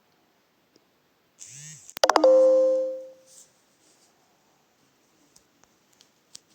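A short electronic beep: a brief sweep about two seconds in, then a loud steady tone that fades out over about a second. A few faint clicks follow.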